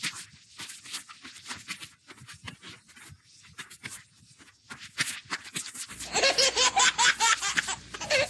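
Scattered short scuffs and rustles, then about six seconds in, loud high-pitched laughter takes over.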